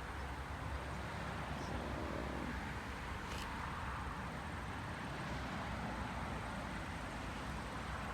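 Steady outdoor background noise: a low, fluttering wind rumble on the microphone over an even hiss.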